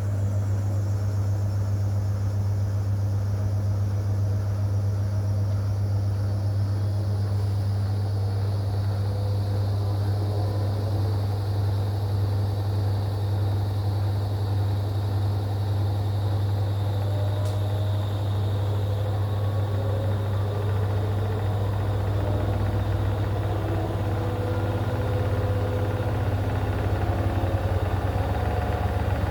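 AEG washing machine running a spin, a continuous low hum of motor and drum. A faint high whine falls in pitch over the first half and then holds steady, and a deeper rumble comes in near the end.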